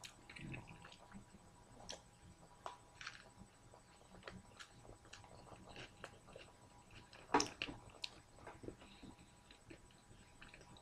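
A person chewing a mouthful of a pita-wrapped lamb yiros, with faint wet mouth clicks and smacks scattered throughout. A single louder, sharper crackle comes about seven seconds in.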